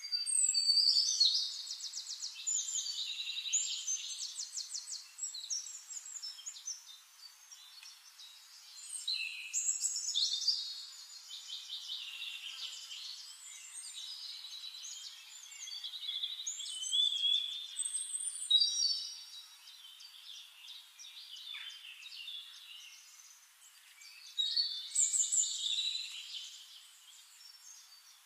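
Songbirds singing: phrases of rapid trilled and chirping notes that come in clusters every few seconds.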